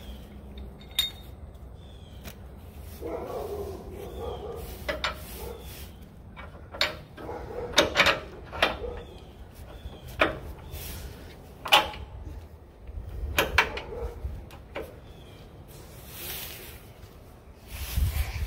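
A dozen or so irregular sharp clicks and knocks of steel hardware being handled as the eccentric cam bolt and cam washer are fitted into the front lower control arm mount of a Toyota 4Runner.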